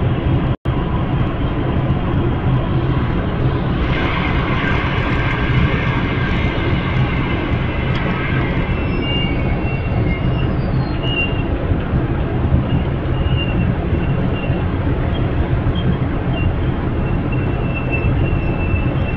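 Amtrak Superliner passenger cars rolling slowly past at close range: a steady low rumble of wheels on rail, with short high squeaks from about nine seconds in. The sound cuts out for a split second less than a second in.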